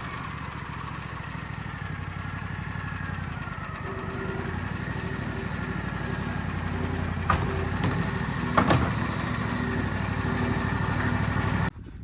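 Wood-Mizer sawmill's engine running steadily, with two sharp knocks about seven and nine seconds in; the sound cuts off suddenly near the end.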